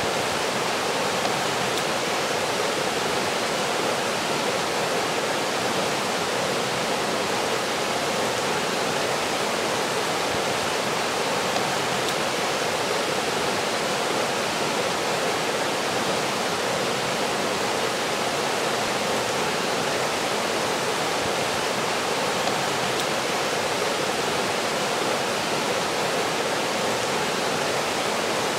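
Fast trout creek rushing over rocks and through whitewater riffles: a steady, unbroken rush of water.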